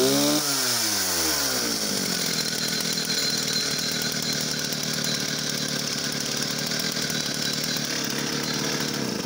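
Vintage Stihl 07 chainsaw's two-stroke engine revved in a quick rise and fall, then dropping back about two seconds in to a steady idle.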